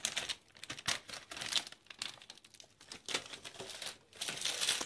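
Thin plastic bag crinkling and rustling in irregular bursts as flour powder is shaken out of it into a mixing bowl.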